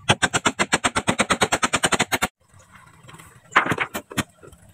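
Hammer driving a nail into a bamboo pole: a rapid, even run of strikes, about ten a second, that stops a little over two seconds in. A few separate knocks follow near the end.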